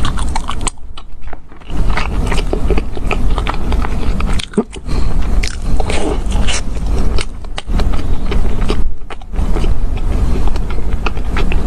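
Close-miked mouth sounds of a person chewing and biting into a plain fried ring donut: a dense run of small clicks, with brief pauses between mouthfuls.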